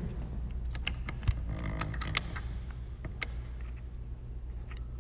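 Phone being handled and picked up: scattered sharp clicks and knocks against its microphone, over a steady low hum.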